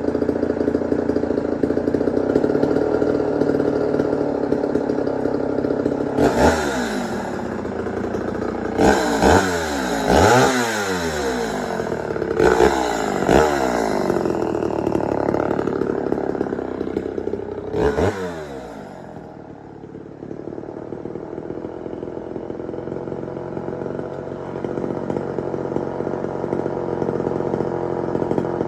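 Homelite Super XL two-stroke chainsaws idling, the throttle blipped about half a dozen times between roughly 6 and 18 seconds in, each rev falling quickly back to idle. The idle dips quieter around 19 to 20 seconds in, then steadies again.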